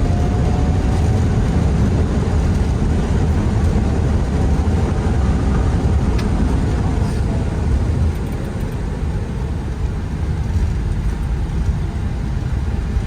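Airbus A320neo's landing roll heard in the cockpit: a steady loud rumble of engines and wheels on the runway just after touchdown, easing a little about eight seconds in as the aircraft slows.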